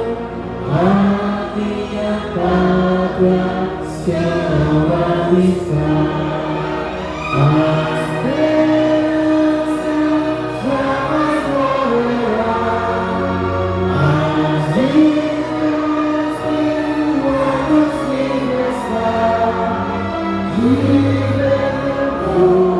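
Choir singing worship music with instrumental backing.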